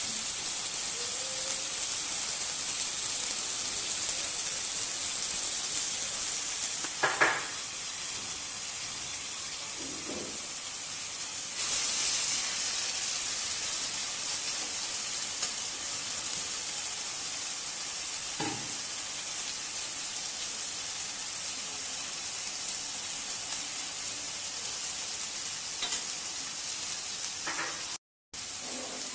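Meat and vegetables frying in a wok, a steady sizzle that gets louder about twelve seconds in, with a spatula stirring and a few short knocks of the spatula against the pan.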